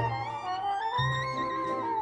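Orchestral waltz film score: a violin melody over a low bass note about once a second.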